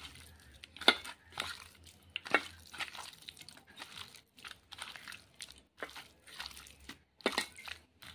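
Wet, irregular squelching of a hand kneading chicken pieces into a spice-and-flour coating in a steel bowl, with a few sharp knocks against the bowl, loudest about a second in, after two seconds and after seven seconds.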